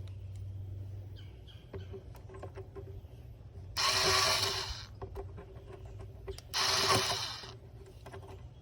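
A ratchet wrench being worked in two bursts of rapid clicking, each about a second long, on intake manifold bolts. Faint light ticks and taps of tools come in between.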